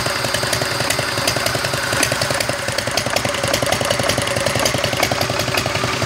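Single-cylinder diesel engine, converted from four-stroke to a two-stroke cycle scavenged through its intake and exhaust valves, running at a steady speed with an even rhythm of firing strokes. A shop vac pushing the scavenging air through the engine runs steadily underneath.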